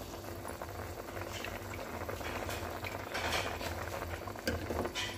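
Biryani water with chicken boiling hard in an aluminium pot, a steady bubbling and popping, while raw rice is spooned into the boiling liquid.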